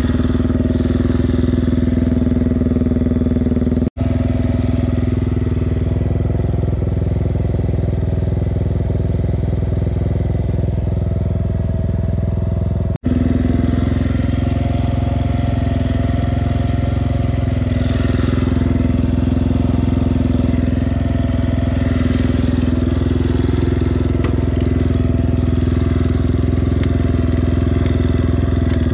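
Yamaha sport quad engine running steadily at an even pitch while riding along a dirt trail, heard from the rider's seat. The sound drops out very briefly twice, about 4 and 13 seconds in.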